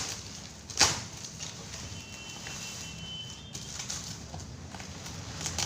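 Cardboard packaging being handled and pried open, with one sharp knock about a second in over a low steady hum.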